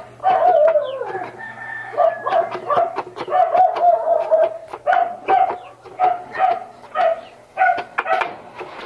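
Chickens calling over and over, short pitched calls about two a second, one sliding down in pitch near the start, with the tapping of a kitchen knife chopping kangkong leaves on a plastic cutting board.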